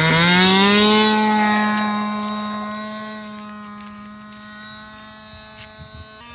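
OS 46 two-stroke nitro glow engine of an RC plane at full throttle, a steady high-pitched buzz. It rises in pitch in the first half-second as the throttle opens, then holds steady while slowly fading as the plane takes off and flies away.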